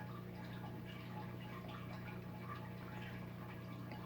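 Faint, scattered clicking typical of chewing on squirrel jerky, over a steady low electrical hum.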